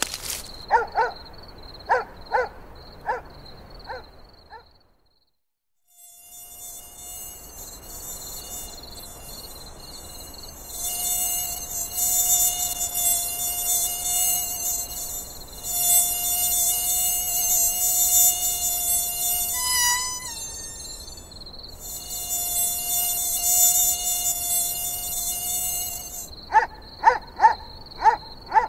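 Mosquito wings whining in a steady, high, thin buzz that swells louder, breaks off briefly a few times and wavers in pitch once, then stops. Before and after it come short, quick chirps.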